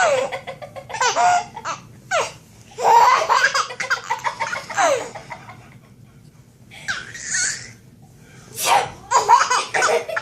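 Baby laughing in repeated fits of belly laughter, with a lull of about a second around the middle. A short noisy burst comes about seven seconds in and a sharper one near nine seconds, and the laughter starts up again right after.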